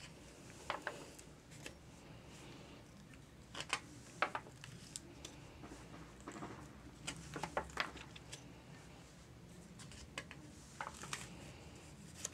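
Pages of an old book being turned and handled by hand: short, soft paper rustles in small clusters several times, between quiet stretches.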